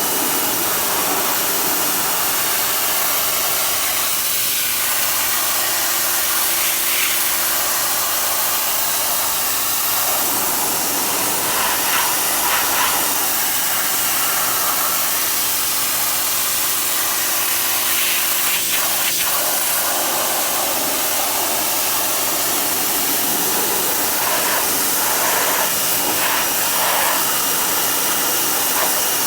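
Pressure washer running steadily: a constant engine or pump drone under the loud hiss of the high-pressure water jet spraying a surface.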